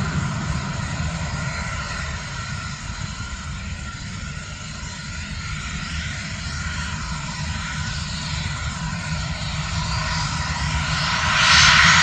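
Embraer Phenom 300's twin Pratt & Whitney PW535E turbofans at takeoff thrust during the takeoff roll: steady jet noise with a high whine, growing much louder near the end as the jet rotates.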